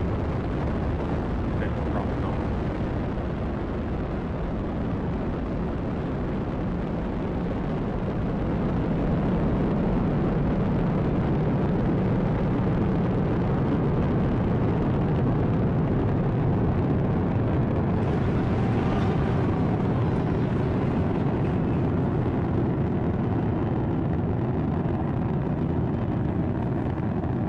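Falcon 9 rocket's nine first-stage Merlin engines running at full thrust during ascent: a steady, deep rumbling roar that grows a little louder about nine seconds in.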